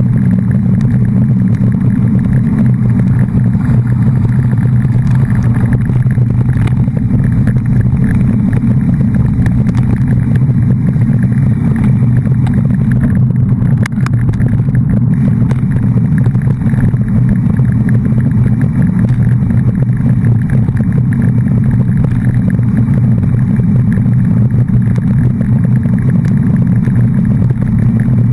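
Steady, loud low rumble of a running vehicle, unchanging in level and pitch throughout.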